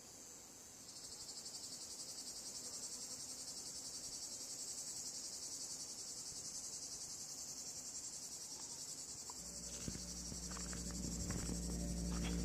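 Crickets chirring in a steady, finely pulsing high-pitched drone that grows louder about a second in. Background music fades in near the end and gets louder.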